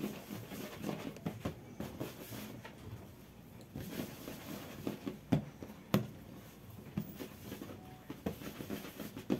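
Hands rounding portions of bread dough on a wooden worktable: soft, irregular rubbing and patting of dough against the wood, with scattered light taps and one sharper tap about six seconds in.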